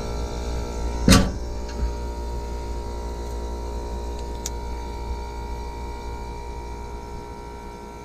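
ClimateMaster geothermal heat pump running in cooling mode, with a steady hum from its scroll compressor. A single sharp knock comes about a second in, followed by a couple of faint ticks.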